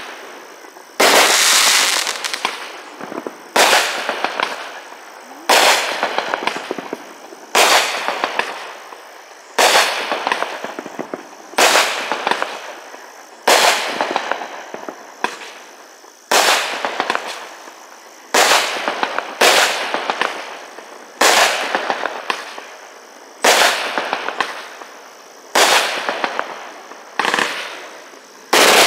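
Outlaw Justice, a 36-shot 500-gram consumer fireworks cake, firing its shots in sequence. A sharp bang comes about every two seconds, with smaller pops between some of them, and each bang trails off in a fading spatter of crackles.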